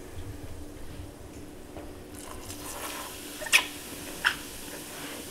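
Vinegar squirted from rubber-bulb droppers onto baking soda in a plastic tub, with a soft fizzing hiss from the reaction and two short, sharp wet squirts a little under a second apart in the second half.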